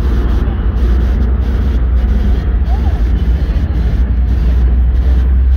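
Classic American cars, a 1950s Chevrolet pickup among them, rolling slowly past in a cruise line: a steady deep engine rumble.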